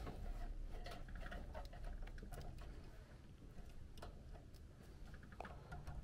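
Irregular light clicks and rustling of hands handling wires and plastic connectors inside a furnace cabinet, over a low steady background hum.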